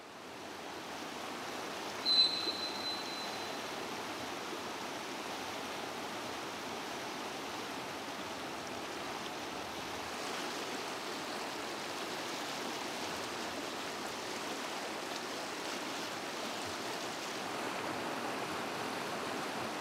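Shallow river rapids rushing steadily over stones. About two seconds in, a short high-pitched tone sounds once.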